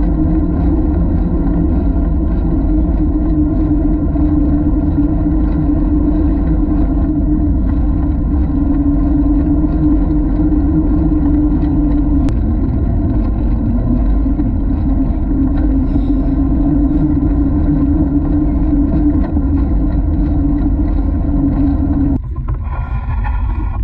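Wind rushing over a handlebar-mounted action camera's microphone, with the steady hum of bicycle tyres rolling on a concrete path. The rush drops suddenly near the end as the bike slows.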